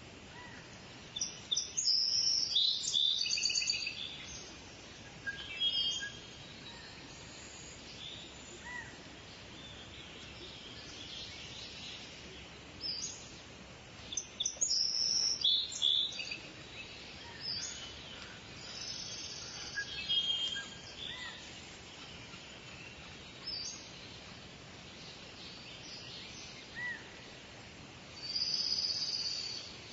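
Birds chirping and calling in scattered bursts of short, high notes over a steady background hiss. The busiest bursts come a couple of seconds in, around halfway, and again near the end.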